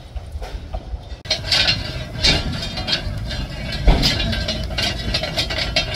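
Footplate of a narrow-gauge steam locomotive: a rapid, irregular run of metallic clinks and rattles over a steady low rumble. One heavier knock comes about two-thirds of the way through.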